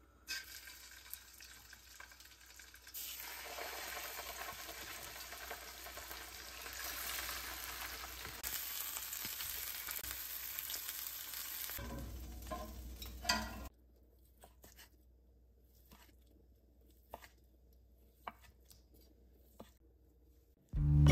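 Tuna steaks sizzling as they sear in a hot oiled frying pan: a steady hiss that starts about three seconds in and cuts off suddenly about eleven seconds later. A few light clicks follow.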